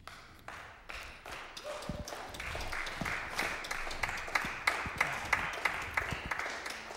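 Applause, building about a second in and fading near the end, with single sharp claps standing out.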